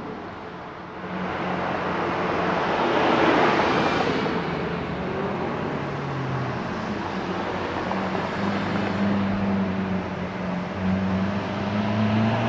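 Lamborghini supercars driving slowly past on a cobbled street. A swell of engine and tyre noise peaks about three seconds in. After that a steady low engine note builds and grows louder near the end as a Lamborghini Aventador's V12 draws close.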